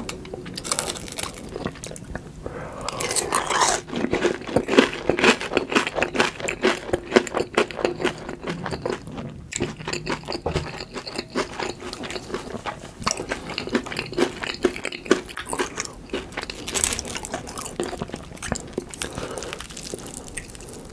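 Crunchy biting and chewing of a breaded, deep-fried mini pork cutlet (donkatsu). The crunching comes in bouts and is densest in the first half.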